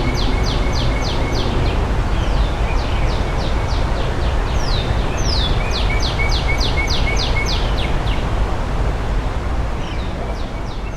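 Northern cardinal singing: phrases of rapid, repeated downslurred whistles, at the start, again about five seconds in, and once more near the end. Under it runs the steady rush of the spring-swollen creek with a low rumble.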